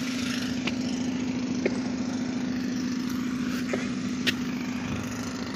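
An engine running steadily at an even pitch, with a few light clicks over it.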